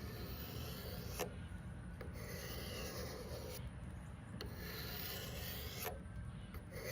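Knife blade drawn along the ceramic rods of a Sharpal 210N Transforod sharpener: a run of long rasping strokes, each lasting about one and a half to two seconds, with short pauses between them.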